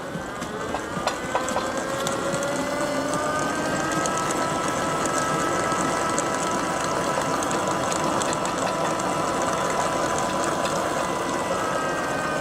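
Dalton universal mixer's electric drive running, its whine rising in pitch over the first few seconds as it comes up to speed, then running steadily.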